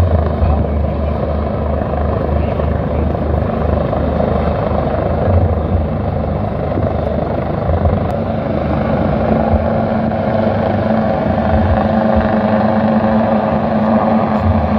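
Agusta AW139 twin-turbine helicopter flying low nearby: steady rotor and turbine noise with a rhythmic low throb from the main rotor in the first few seconds, and a steady hum that grows in from about nine seconds in.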